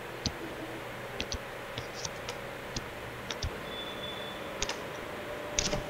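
Irregular light clicks and taps of a stylus pen on a tablet while drawing, over a faint steady hiss.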